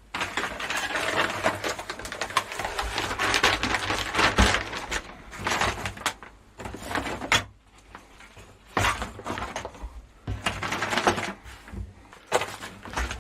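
Rummaging through a box of computer cables and parts: plastic and metal pieces clattering and rustling against each other in bursts, with short pauses in the second half.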